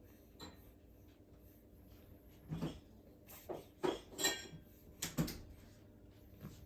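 A three-month-old baby's short breathy snuffles and grunts, several brief ones in a row, with a short high squeak about four seconds in.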